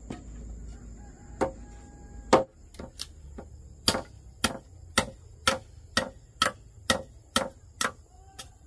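A hand tool striking wood in repeated sharp blows: a couple of strikes, then a steady rhythm of about two blows a second.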